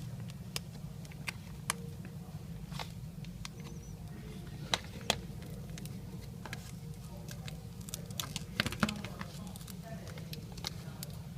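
Scattered small clicks and ticks of a business card being worked under the heated adhesive of a tablet's glass touchscreen digitizer, over a steady low hum.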